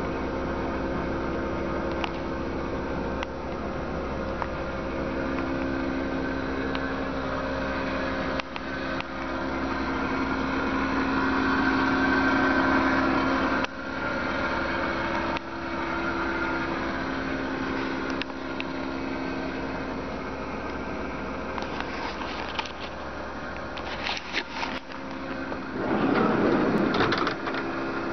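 Subaru Sambar van's small four-cylinder engine idling steadily. A few knocks and a short loud scuffing noise come near the end.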